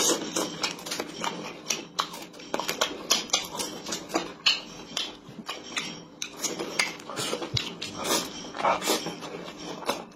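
Close-up eating sounds of a person chewing fried chicken with an open mouth: irregular wet smacks and clicks. Near the end, instant noodles are slurped in from chopsticks.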